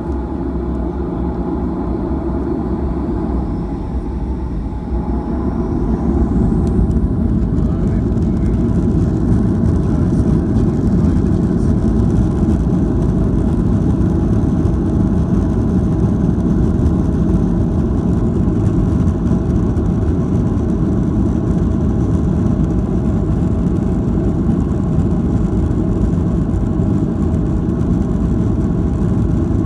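Jet airliner's engines heard from inside the cabin at the start of a takeoff: a steady low rumble with a faint high whine that rises as the engines spool up. Everything grows louder about five seconds in and then holds steady at takeoff power as the plane rolls down the runway.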